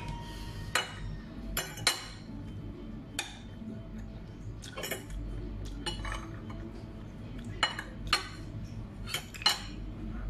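Metal fork and spoon clinking against ceramic plates while eating, about ten sharp clinks at irregular intervals.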